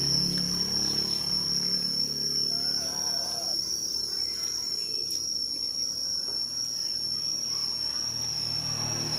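Steady, high-pitched insect chirring, unbroken throughout.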